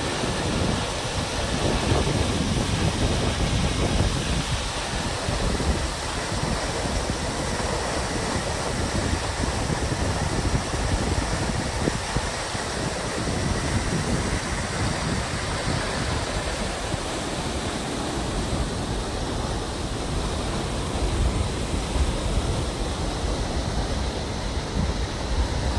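Steady rush of water from the Crescent Falls waterfall, with uneven low rumbling from wind buffeting the microphone.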